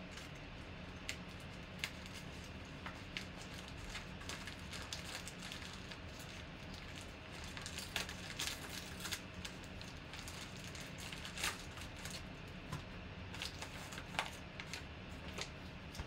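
A yellow padded mailer being opened by hand and paper and cards pulled out of it: crinkling and rustling with scattered sharp clicks and crackles, over a low steady hum.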